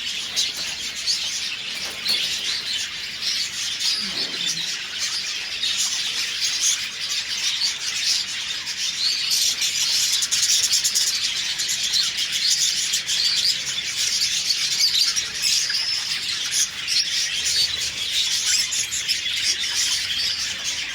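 Many small cage birds in an aviary chirping and chattering continuously, a dense high-pitched twittering.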